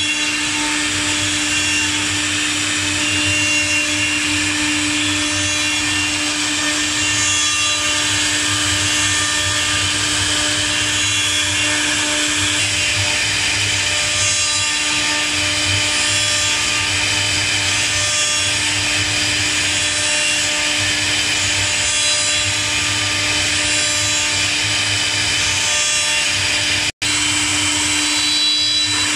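CNC wood router's air-cooled spindles running at speed and engraving wood: a steady whine over a continuous cutting noise, broken by a split-second silence near the end.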